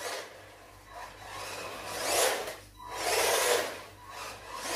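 Haiboxing 16889 1/16-scale RC monster truck drifting and spinning donuts on a polished floor: tyres scrubbing and its brushed RC390 motor whirring, in surges that swell and fade with the throttle.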